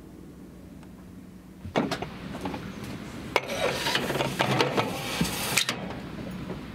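A faint steady hum, then from about two seconds in, sharp metal clinks and knocks and a scraping slide as a rocket is pushed by hand into a tube of a helicopter's rocket launcher pod.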